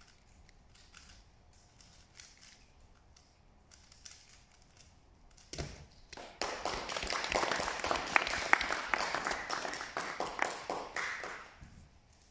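Faint clicking of a 3x3 speedcube being turned, then a knock about five and a half seconds in as the solve ends and the hands come down on the stackmat timer. About a second later applause breaks out, dense with individual claps, and dies away near the end.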